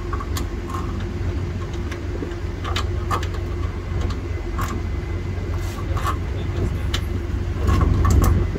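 A vehicle engine idling steadily, with scattered short metallic clicks as a truck's spring brake chamber is worked with its release bolt to let off the brakes. The engine rumble swells briefly near the end.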